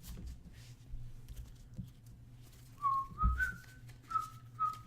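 A person whistling a short tune of a few held notes, starting about three seconds in, with soft taps of cards being handled.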